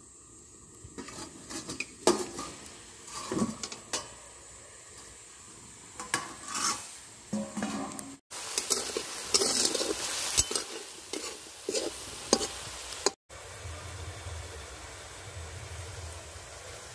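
A metal spatula clinks and scrapes in a steel kadai, then chicken fries in hot oil with a dense sizzle and more spatula clatter. This cuts off abruptly about three-quarters through, leaving a low steady hum.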